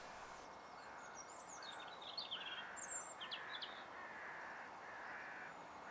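Faint, distant crows cawing over and over in short harsh notes, with the higher quick chirps of small birds, mostly in the first half.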